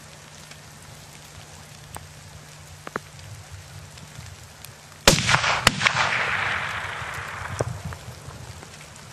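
A hunting rifle shot at a brown bear, about five seconds in: one loud crack, then a second sharp crack about half a second later, and a report that rolls away and fades over a couple of seconds.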